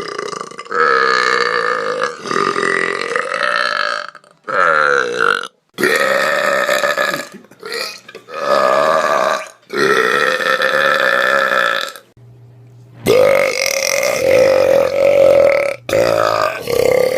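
Loud, drawn-out human belches on command: a string of about eight long burps, each lasting one to three seconds, with short breaks between them.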